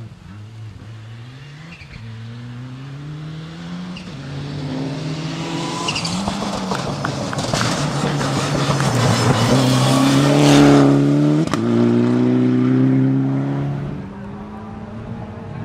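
Rally car approaching hard on a gravel stage, its engine rising and dropping in pitch as it changes gear, with a rough scrabble of tyres on loose gravel. It is loudest as it slides past about ten seconds in, then changes gear sharply and fades as it pulls away.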